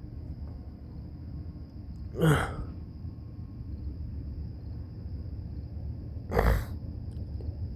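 Two short, sharp sneeze-like bursts from a person, about four seconds apart, the first falling in pitch, over a steady high whine and a low background rumble.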